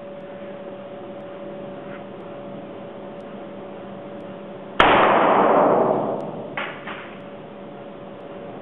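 A single shot from an AK-pattern rifle firing 7.62 mm steel-case ammunition, about five seconds in, echoing off the walls of the indoor range and dying away over a second or so. A short faint clink follows about two seconds later, over a steady hum.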